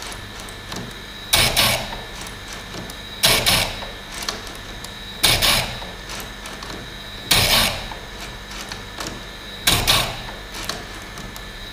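Electric bench chainsaw-chain grinder running with a steady hum, its wheel lowered onto the chain cutter by cutter: five short, harsh grinding bursts about two seconds apart as each tooth is sharpened.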